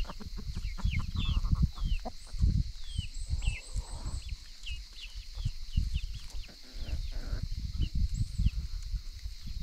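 A flock of free-range chickens clucking, with many short, high, falling chirps over an uneven low rumble.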